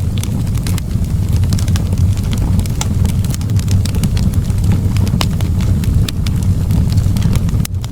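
Wood fire in a fireplace crackling, with irregular sharp pops and snaps over a steady low roar of the flames.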